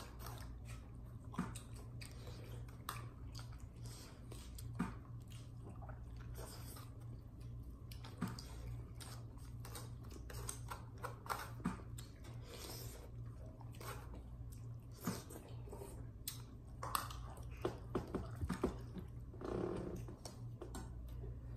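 A person chewing food, with scattered small clicks and taps from eating, over a steady low hum.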